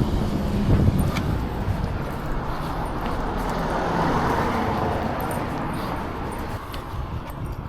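Road traffic noise: a vehicle passes, its tyre and engine noise swelling to a peak about four seconds in and then fading, with a low rumble beneath.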